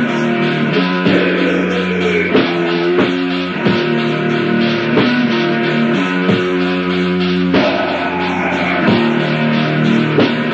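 Death/doom metal from a 1993 demo tape: distorted electric guitar holding slow, sustained chords over drums, with a drum hit roughly every second.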